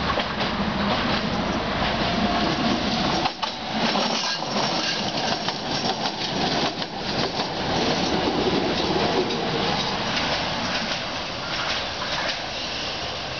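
Two coupled Tatra T5C5 trams running past on the track, wheels rolling on the rails under their running gear, then drawing away.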